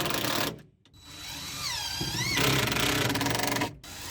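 Power drill driving screws into 2x4 wood blocks, its motor whine rising and falling with the trigger. It stops briefly just under a second in, runs again and grows louder and heavier as a screw bites, then stops near the end.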